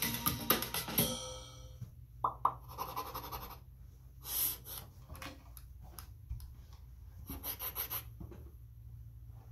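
Music with drumming stops about a second and a half in. Then come quiet, scattered knocks, taps and rubbing as hand drums, a djembe and a tall conga-style drum, are moved and handled, over a steady low hum.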